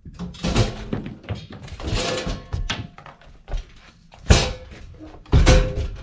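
Metal clunks and scraping as a breaker panel's sheet-steel cover is handled and set down against the wall, with two sharp knocks in the second half.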